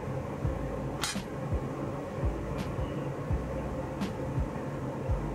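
A sharp metallic clink about a second in, as a throat plate is set into a table saw's table around the stopped blade. Under it runs a steady low machine hum with soft low thumps about every two-thirds of a second and fainter ticks every second and a half.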